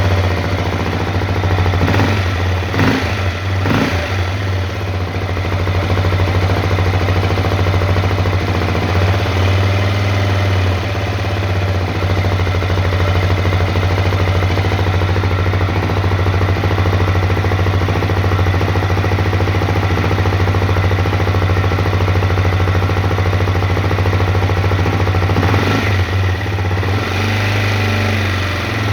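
Honda CRF250L single-cylinder four-stroke engine idling, with a knock the owner is recording; the throttle is briefly blipped a few seconds in and again near the end.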